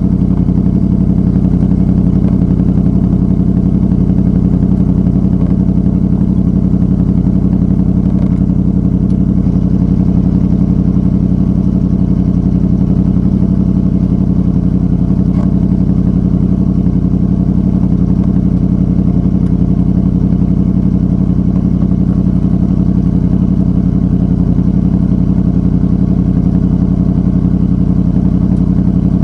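2006 Honda VFR800 Interceptor's V4 engine running through a Two Brothers Racing exhaust, holding a steady, even note with no revving.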